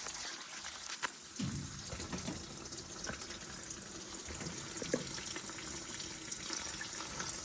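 Water running steadily out of a boiler's drain point through a hose into a bucket as the heating system is drained down to deal with a flat expansion vessel, with a few light knocks.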